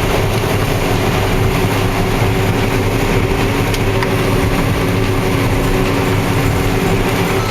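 Combine harvester running steadily while harvesting soybeans, a constant engine and threshing drone with a steady hum.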